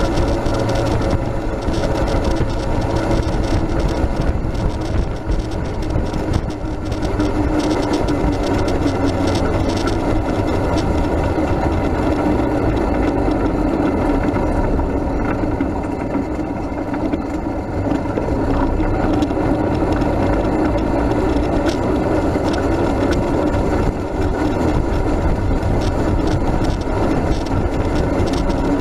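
Road noise from a Max II 6x6 amphibious ATV being flat-towed on a tow bar over pavement: a steady rolling rumble with frequent small rattles and knocks from the towed vehicle's body and frame.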